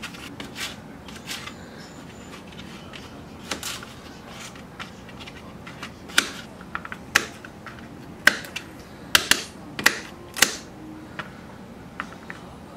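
Kitchen knife cutting kohlrabi on a plastic cutting board: irregular sharp knocks of the blade against the board, faint at first, then a run of louder chopping strikes in the second half.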